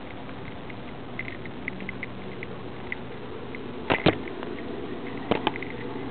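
Collar-mounted camera on a moving cat: a steady hiss with faint light ticks, and two sharp double knocks, about four and five and a half seconds in, as the camera bumps and rubs.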